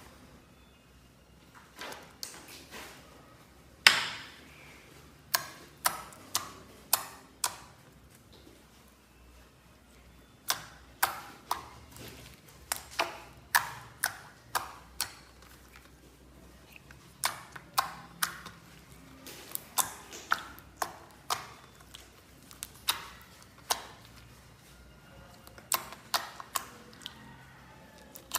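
Slime being pressed and worked by hand, giving irregular sharp clicks and pops, a few at first and then coming thick and fast from about a third of the way in.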